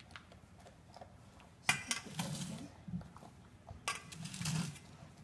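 Two sharp clinks against a dog's food bowl, about two seconds apart, each followed by a short low rustle as a large puppy eats from it.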